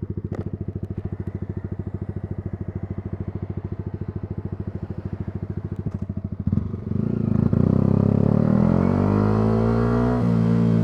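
Yamaha R125's single-cylinder engine idling with an even, rapid beat, then revving up about six and a half seconds in as the bike pulls away. The pitch climbs steadily, with a brief dip near the end.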